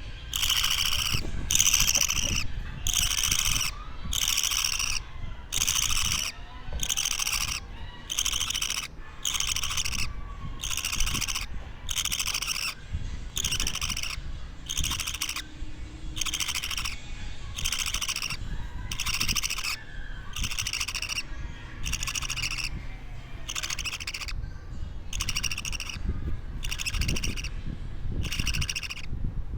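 Two-week-old budgerigar (parakeet) chick calling over and over, short raspy chirps at a steady rhythm of a little more than one a second.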